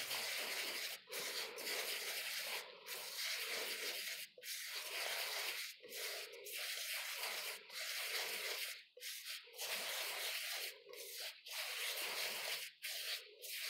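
Hands kneading and squeezing a gritty Epsom salt and oil scrub in a glass bowl: a rasping, crunching scrape in repeated strokes with brief pauses about every second.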